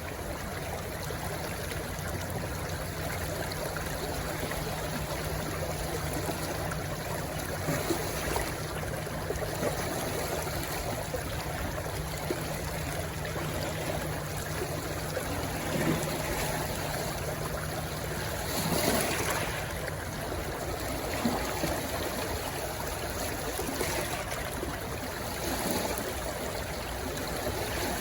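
Stream rushing and trickling as it runs into the sea: a steady flow of water with a few brief louder surges, the strongest about two-thirds of the way through.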